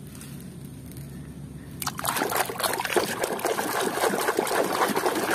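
Water splashing and sloshing in a basin as a hand swishes a muddy plastic toy dinosaur through it to wash it, starting suddenly about two seconds in.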